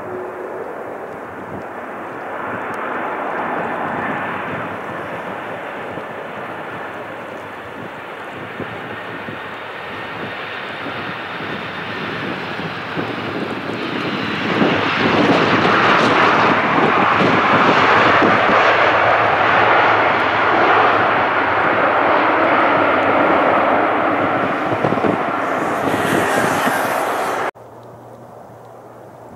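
Four jet engines of a Boeing 747-400 freighter running steadily on final approach, growing louder as it comes in. About halfway through it touches down and the engine noise swells sharply and stays loud, then cuts off suddenly near the end, leaving a much fainter jet sound of a following airliner on approach.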